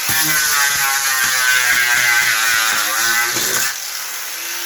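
Electric angle grinder with a coarse 36–40 grit sanding disc running and sanding wood, a loud whine with a gritty hiss; it eases off and goes quieter about three and a half seconds in.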